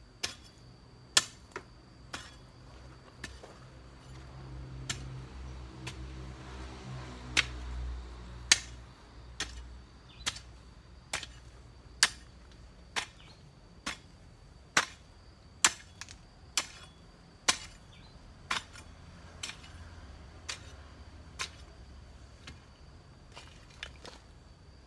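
A garden hoe chopping into soil, a sharp strike about once a second.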